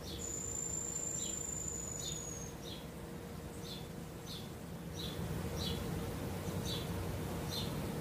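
Insects chirping: a short high chirp repeating about once a second, with a thin, very high whistling note held for about two seconds near the start. Beneath them runs a steady low background rumble.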